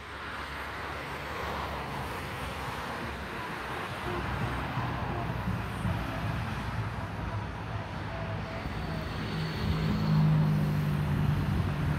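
Boeing 737-800's CFM56-7B jet engines on final approach, a distant steady jet noise that grows louder as the airliner nears.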